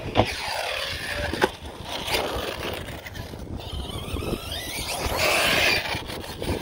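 Arrma Outcast RC truck's Surpass Hobby 4076 2000 Kv brushless motor and drivetrain whining as it drives, the pitch falling as it slows and then rising as it speeds up again, with two sharp knocks in the first second and a half.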